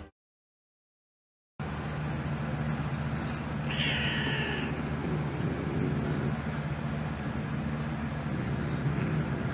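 After a second and a half of silence, a steady low hum starts. About four seconds in, a domestic tabby-and-white cat gives one meow lasting about a second.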